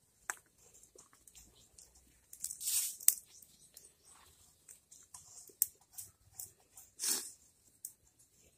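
Soaked barnyard millet and its water being scraped by hand off a steel plate into a pot of hot milk: short wet scrapes and two longer swishes of grain sliding off, with a sharp metallic click just after three seconds in.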